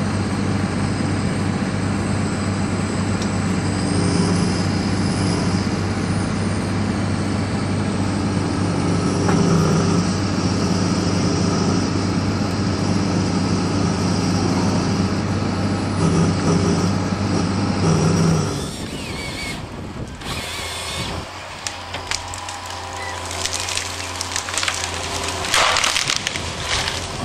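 Forestry machine engine running steadily with shifting hydraulic and crane sounds, heard through a machine's cab. After about 18 seconds the sound changes abruptly to open air: the Gremo RH 106 remote-controlled harvester runs as its head fells a tree, with a stretch of cracking and crackling near the end as the trunk comes down.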